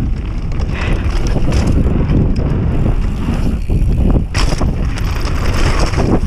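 Wind buffeting the microphone of a mountain bike's action camera as the bike descends at speed, with its tyres rolling over loose gravel and dirt and the bike rattling and knocking over bumps. A sharper clatter comes about four seconds in.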